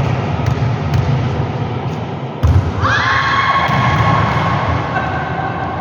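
Volleyball thuds from play on an indoor court, with a loud, sharp hit a little before halfway. Just after it comes a long held high tone that rises at its start.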